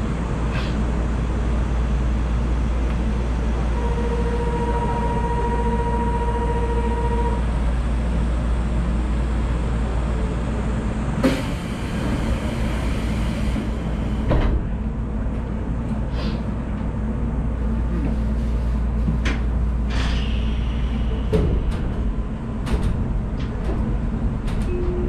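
Inside the cab of a 1993 Mitsubishi 1000 Series suspended monorail car standing at a station, with a steady low hum from the car. A steady beep tone sounds for about three seconds, a rushing hiss lasts about three seconds near the middle, and there are scattered clicks.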